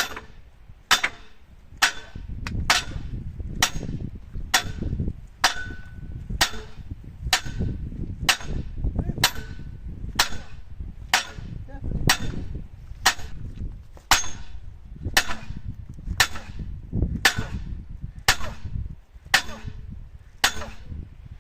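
Sledgehammer blows on a steel excavator track pin, about 26 even strikes at a little over one a second, each a sharp clang that rings briefly.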